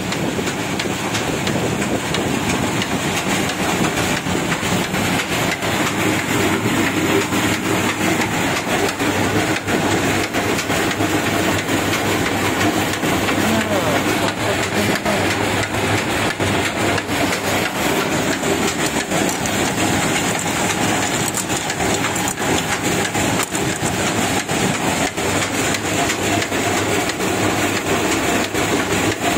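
Sardar 32-patti oil expeller running: a steady, even mechanical din thick with rapid knocks and clatter.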